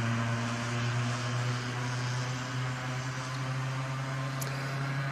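Passing vehicle with a loud aftermarket 'beer can' exhaust, a steady low droning racket that slowly fades.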